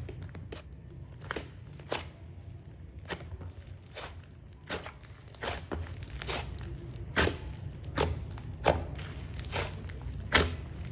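Slime being squeezed and pressed by hand, giving irregular sharp pops and clicks that grow louder and more frequent in the second half, over a steady low hum.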